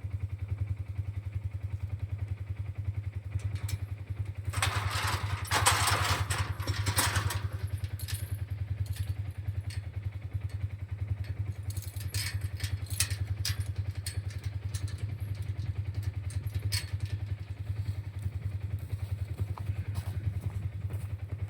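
A vehicle engine running steadily at low speed, with a fast, even low pulse. A louder rushing noise comes in for a few seconds about five seconds in, and scattered knocks and clatters follow later.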